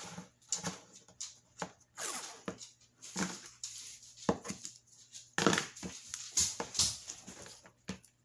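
Green floral tape being pulled off its roll and torn, and artificial flowers being handled, giving a run of irregular crinkling rustles. The loudest ones come a little past halfway.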